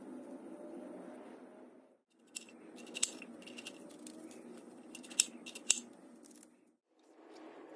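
A knife slicing through a raw onion held in the hand, giving a series of crisp crunches with a few sharper snaps, over a steady low background hum.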